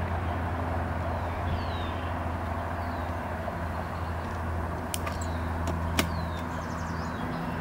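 Steady hum of many agitated honeybees buzzing around an open hive. A few sharp clicks break through, the loudest about six seconds in, and faint high chirps fall in pitch now and then.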